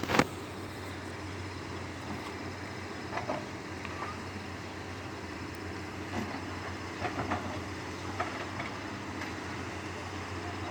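A machine's engine running steadily with a constant low hum, and a few light knocks and clanks here and there.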